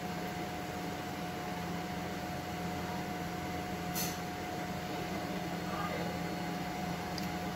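Steady kitchen hum and hiss, with a constant tone held under it, and one short sharp click about four seconds in.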